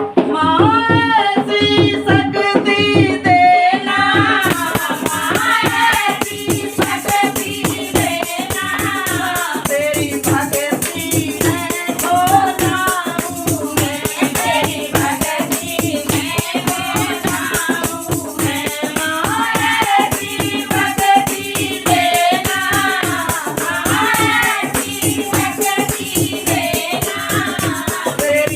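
A Hindi devotional bhajan: a singer's voice carries the melody over fast, steady, rattling percussion.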